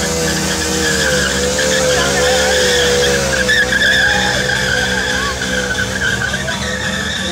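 KTM Duke's single-cylinder engine held at high revs, its pitch wavering up and down, as the rear tyre spins and skids on concrete, with a steady hiss of tyre scrub.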